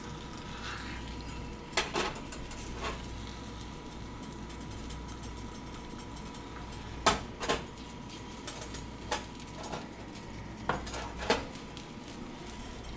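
Spatula tapping and scraping against a small skillet as an omelette is worked, in irregular clicks and knocks. A faint steady hum runs underneath.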